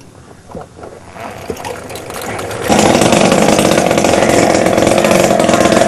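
A junk-built mini moped's 50cc engine is quiet at first, then comes in suddenly about three seconds in and runs loud and steady at high revs as the moped pulls away.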